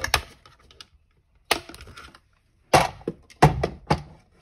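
A handful of sharp, irregular clicks and clacks of the cutting plates and die of a small die-cutting machine being handled and set down on a table.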